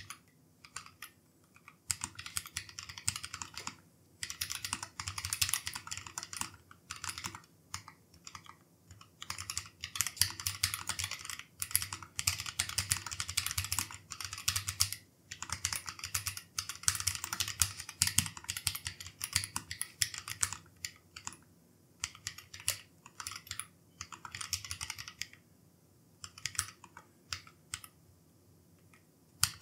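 Typing on a Keychron K3 Pro low-profile mechanical keyboard with Gateron red linear switches: fast runs of keystrokes in bursts with short pauses, thinning to a few scattered keypresses near the end.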